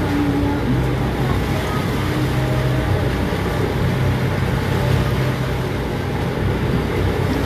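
Boat engine running steadily with a low, even drone, heard from on board.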